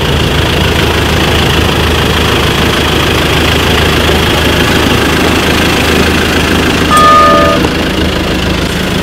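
Ford Ranger pickup's engine running steadily as the truck drives slowly past, with a short car-horn toot about seven seconds in, the loudest moment.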